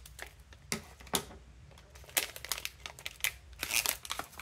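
A metallised anti-static bag crinkling in irregular sharp crackles as it is handled and a circuit board is taken out of it.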